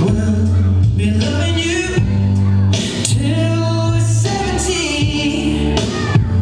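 Music: a slow pop song with a singing voice over sustained bass notes.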